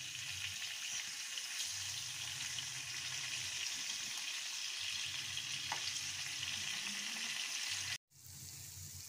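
Fish slices and curry leaves sizzling in hot oil in a non-stick pan, with a wooden spatula scraping and turning them. The sizzle stops for a moment about eight seconds in and comes back quieter.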